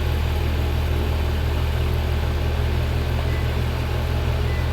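Heat pump outdoor unit running in cooling mode: a steady, even low hum from the compressor and condenser fan.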